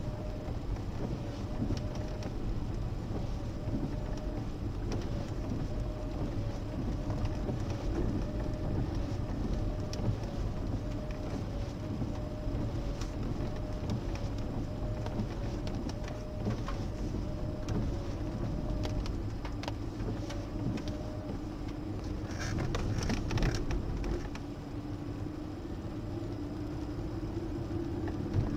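Mercedes car driving slowly, heard from inside the cabin: a steady engine and tyre rumble over rough brick rubble and gravel. There is a cluster of clicks and knocks about 22 to 24 seconds in, and the engine note rises near the end as the car speeds up.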